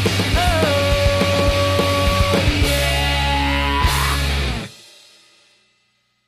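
Rock music soundtrack with drums and held, bending guitar-like notes, ending about four and a half seconds in, its last chord dying away to silence within about a second.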